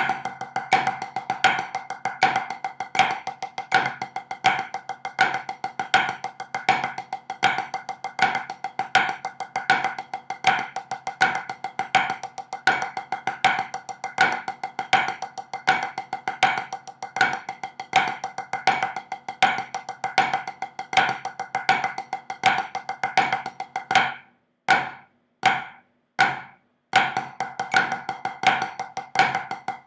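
Wooden drumsticks on a rubber practice pad playing a flam paradiddle and flammed five-stroke paradiddle exercise at 80 beats per minute: a fast, even run of strokes with regular accents. About 24 seconds in the run thins to a few single strokes, then picks up again.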